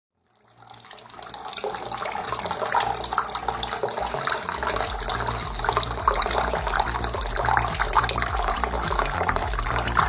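Water from a small tabletop fountain splashing from a shell-shaped spout into a basin, fading in over the first second or two. A low hum comes in about halfway through.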